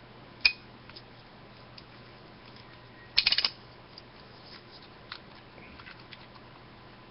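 Plastic parts of a Transformers Misfire toy clicking as it is transformed by hand: one sharp click about half a second in, a quick rattle of clicks around three seconds in, and faint small ticks between.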